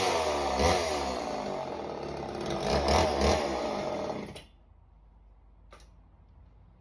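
Homelite Super Mini chainsaw's two-stroke engine dropping from high revs and running with two or three short throttle blips, then shutting off abruptly about four seconds in. A single click follows.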